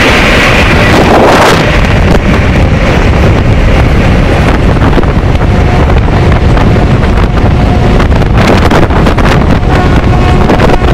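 Loud wind rush and running noise of an Indian Railways passenger train at speed, heard at an open door or window. Faint steady horn tones come in during the second half.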